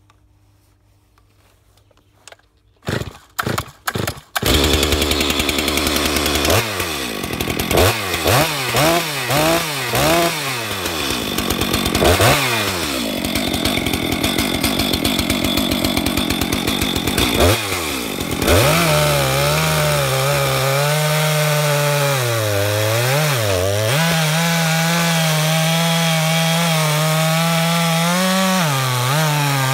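Stihl MS 462 C two-stroke chainsaw being started: several short bursts about three seconds in, then the engine catches and runs. It is revved up and down in quick blips, and from about two-thirds of the way through it is held at high revs cutting through a log, its pitch dipping as the chain bites into the wood.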